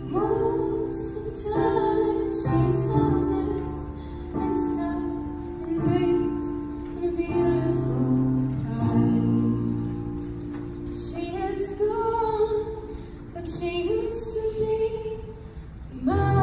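A woman singing a slow ballad solo into a handheld microphone, amplified over a PA, with long held sung notes over steady low instrumental accompaniment.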